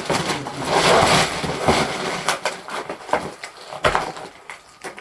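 Plastic packaging rustling and crinkling as a parcel is unwrapped by hand. A dense crackle in the first two seconds gives way to separate sharp clicks and rustles.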